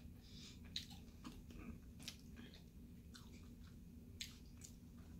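A person chewing fried chicken wings: soft wet mouth smacks and clicks, with sharper ones about a second in, at two seconds and near four seconds.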